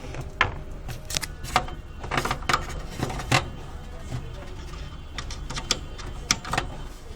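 Irregular sharp clicks and taps of small hard objects being handled, over a steady low hum.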